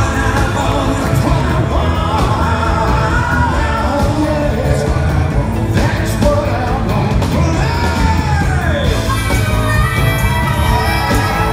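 Live rock band playing loudly with singing and shouted vocals, heard from the audience in a hall, with heavy bass throughout. A long falling glide in pitch stands out about eight seconds in.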